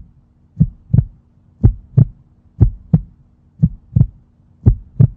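Heartbeat sound effect: paired lub-dub thumps, about one beat a second and very regular, over a faint steady hum.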